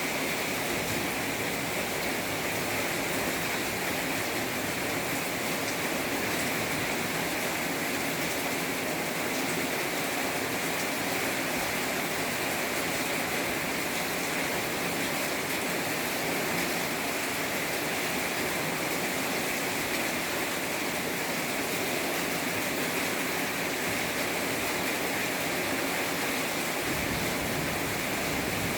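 Heavy rain falling in a steady downpour, an even hiss that holds constant throughout.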